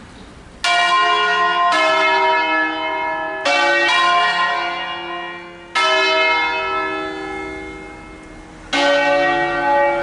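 Six swinging church bells cast by Crespi of Crema in 1885, tuned in D-flat, rung as a funeral concerto. Six single bell strokes come at uneven intervals, two of them close together in the middle, and each rings on and slowly dies away.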